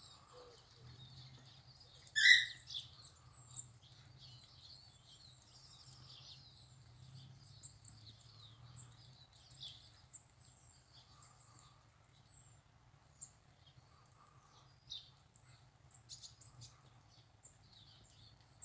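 Small birds chirping and singing, with short high calls scattered throughout and one louder call about two seconds in, over a faint low hum.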